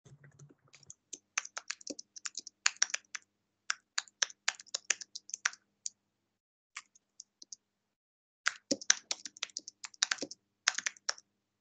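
Typing on a computer keyboard: a quick run of keystrokes, a gap of a couple of seconds with only a few stray taps, then another quick run.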